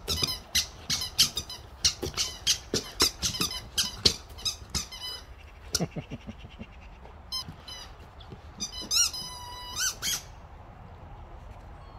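Rubber chicken squeaky toy squeaking as a boxer dog shakes and chews it, about three quick squeaks a second at first, then a few scattered squeaks and two longer squawks near the end.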